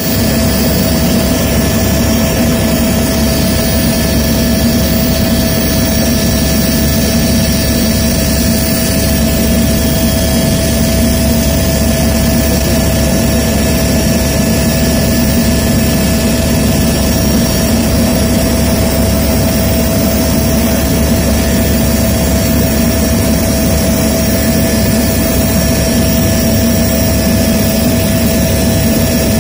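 Steady, loud running noise of the aircraft carrying the camera, a low rumble with a constant high whine over it, unchanging throughout.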